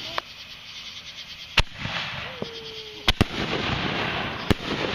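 Consumer aerial fireworks going off: a sharp bang about a second and a half in, a quick pair of bangs a little after three seconds, and another near the end. Each bang is followed by a crackling fizz.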